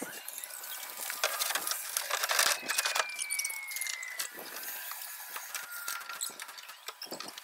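Dense clatter of rapid clicks, taps and knocks from shed roof framing and sheathing work, nail-gun and hammer strikes on wood, with a thin falling whine near the middle.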